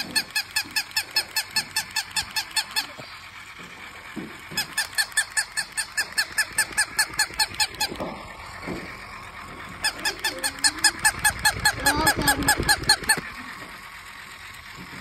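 Battery-powered plush toy puppy giving rapid electronic yips, about five a second. They come in three runs of a few seconds each, with short pauses between.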